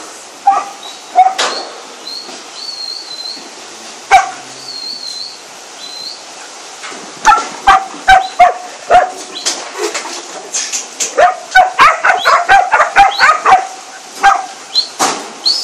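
Working sheepdog barking while driving a mob of sheep up a race: a few spaced barks, then quick runs of barks in the second half.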